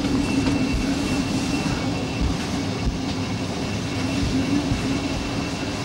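DE II diesel multiple unit running along the track, heard from inside: a steady engine drone with a thin constant high whine, and low knocks and rumble from the wheels on the rails.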